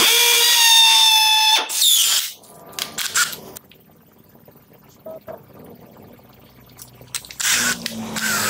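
Stanley SBH201D2K 18 V brushless cordless hammer drill drilling into a masonry wall, its motor giving a loud, steady high whine. It stops about two seconds in, followed by a few clicks. Near the end a low steady hum begins.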